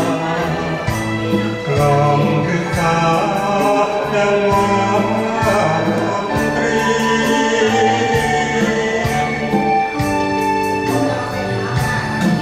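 A man singing a Thai ballad into a microphone over instrumental backing music with a regular beat.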